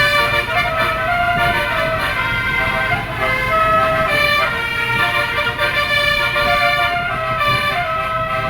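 Family Trans bus's multi-tone telolet air horn playing a tune of held notes that step up and down in pitch, with the bus engine running low underneath.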